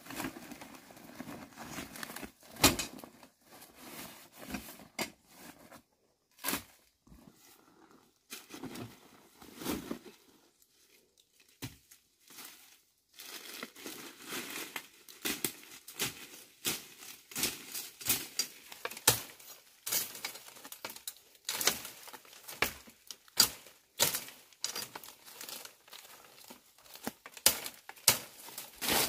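Irregular crinkling and rustling with many sharp clicks, as of something being handled by hand, broken by two short pauses.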